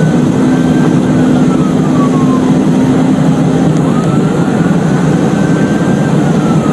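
Emergency-vehicle siren wailing, rising and then slowly falling in pitch twice. It sounds over loud road and engine noise from a police car driving fast on an emergency run.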